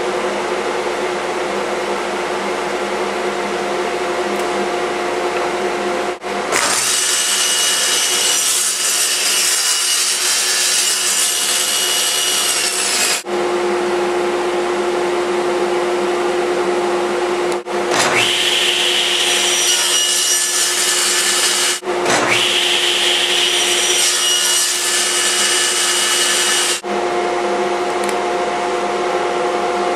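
Table saw running with a steady motor hum, its blade cutting through wooden picture-frame molding on a miter sled three times. Each cut opens with a rising whine and then holds a louder, hissing rasp for several seconds: the first cut runs longest, and the last two follow almost back to back.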